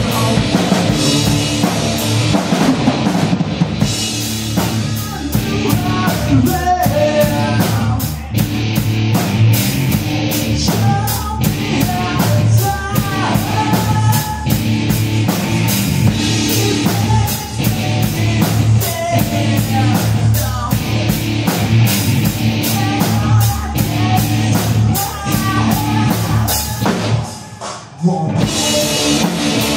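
Rock band playing live: electric guitar, a full drum kit keeping a fast steady beat, and sung lead vocals. The band drops out for a moment near the end and comes straight back in.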